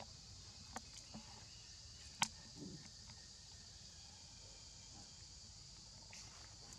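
Steady high-pitched chorus of insects, with a few faint clicks and one sharper click about two seconds in.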